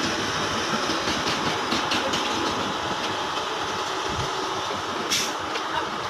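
Concrete boom pump truck running, a steady mechanical engine and hydraulic noise. A few short knocks cut through it, the sharpest about five seconds in.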